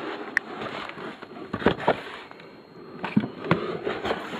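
Handling noise from unpacking airsoft gear: rustling, then several sharp knocks and clicks, the loudest nearly two seconds in and again around three and a half seconds in.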